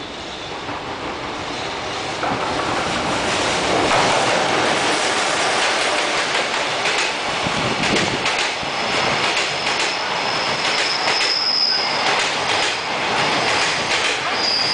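EF66 electric locomotive and its freight train of container wagons passing close by, the noise growing louder over the first few seconds as it approaches. From about halfway in, a high steady wheel squeal sounds over the rolling wheels and rapid clicks of wheels over rail joints.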